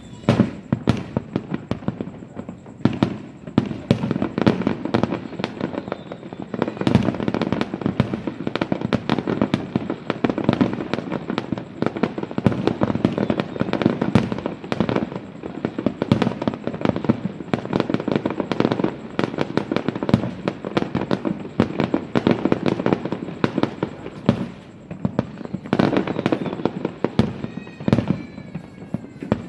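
Fireworks exploding in a continuous barrage of bangs and crackles, with a few falling whistles near the end.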